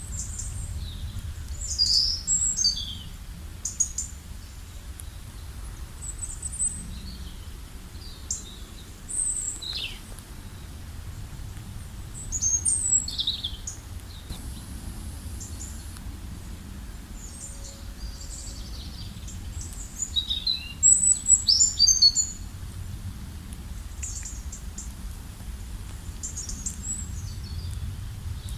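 Small birds chirping and singing in short calls scattered throughout, with a busy run of calls about three quarters of the way through, over a steady low rumble.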